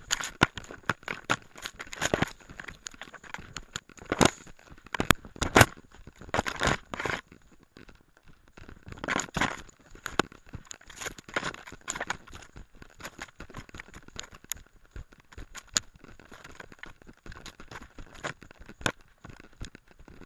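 Dog pushing through forest undergrowth with a camera on it: irregular rustling and crackling of branches, grass and fur brushing right against the microphone, with sharp knocks and footfalls, busiest in the first several seconds.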